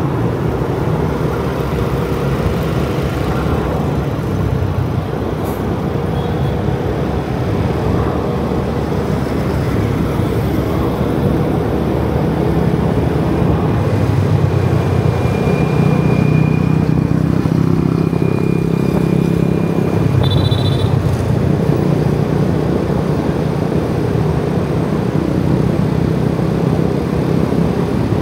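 Motorbike ride through city traffic: the bike's engine running with steady road and wind noise. Surrounding scooters and cars pass close by, and the level swells slightly in the middle.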